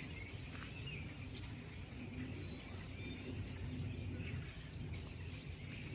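Several small birds chirping and calling, with many short high chirps and quick whistled notes overlapping, over a steady low background rumble.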